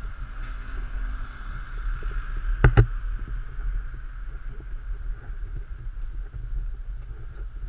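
Steady rushing and low rumble of movement noise from a camera travelling along a street, with two quick sharp knocks close together a little under three seconds in.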